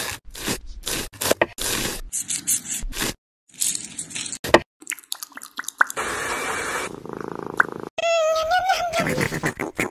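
A run of short, sharp taps and clicks, then a long, wavering cat meow for the last two seconds.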